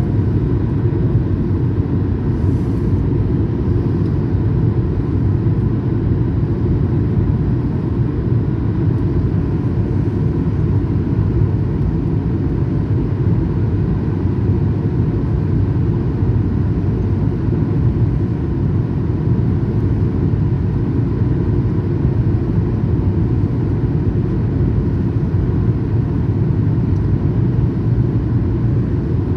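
Airliner cabin noise: a steady, deep rumble of engines and airflow heard from inside the passenger cabin during the takeoff climb, with a faint steady whine above it.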